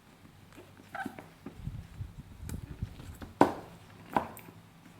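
A tablet's retail box being handled and opened, with rustling and a few sharp knocks, the loudest about three and a half seconds in.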